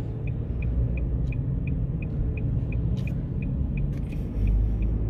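Car on the move heard from inside the cabin: a steady low road and engine rumble, with a quiet regular ticking about three times a second.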